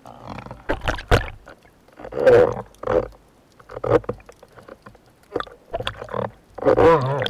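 A spearfisher's heavy, grunting breaths and gurgles through the snorkel on surfacing after a dive, in irregular bursts that run together near the end. There are a couple of sharp knocks about a second in.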